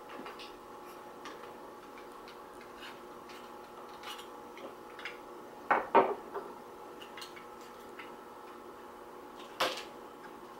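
Light clicks and taps of tableware being handled, with a louder knock about six seconds in as a knife is set down on the wooden table, and a sharp clatter near the end as a clear plastic cup of peanuts is handled over a paper plate.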